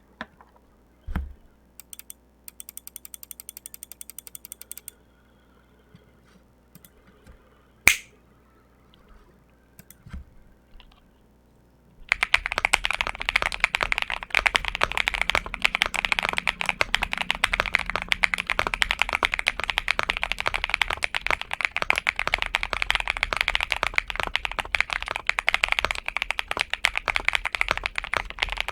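Typing on a XINMENG M75 Pro mechanical keyboard with Dark Plum switches. The first twelve seconds hold a few isolated clicks and a short, quick, even run of ticks. After that comes continuous fast typing, a dense stream of key clicks.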